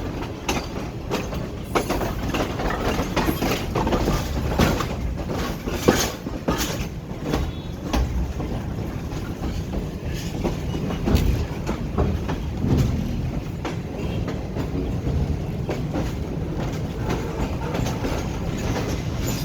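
Sir Syed Express passenger train rolling past on the track: a steady rumble of wheels on rail with repeated sharp clicks and clatter as the wheels cross rail joints.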